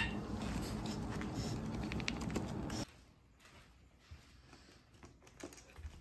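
Steady background noise, then after a cut about three seconds in, a quiet room with a few faint scattered ticks and taps from a pug's paws on the floor.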